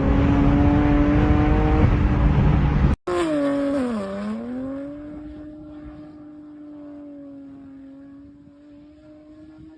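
Car engine running loud under load with a slowly climbing note, stopping abruptly about three seconds in. A second car engine follows: its note dips, rises again and then holds steady while fading.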